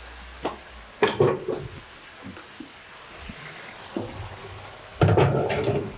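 Kitchen tap water running into a sink, with sharp clatters of dishes or utensils about a second in and again near the end.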